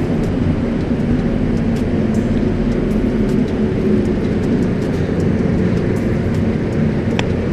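Steady mechanical drone with a low hum, unchanging throughout.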